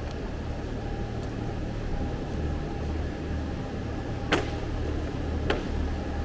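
Steady low mechanical hum of a factory hall, with two sharp knocks a little over a second apart near the end.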